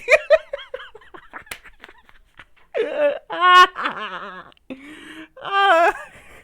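A man laughing hard: a quick run of short laughs, then two longer, high-pitched bouts of laughter about three and five and a half seconds in.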